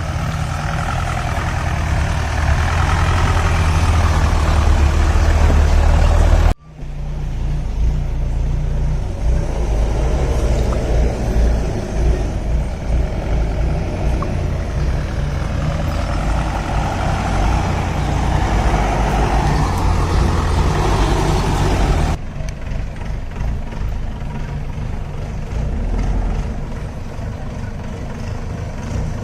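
4x4 jeep engine running as it drives along an off-road track, a steady low rumble. The sound cuts abruptly twice, about six seconds in and again past twenty seconds.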